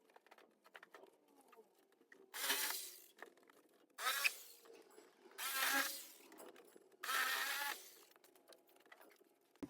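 Four short bursts of a handheld power tool cutting away more of a plastic bumper bar, its pitch wavering under load, with pauses between them.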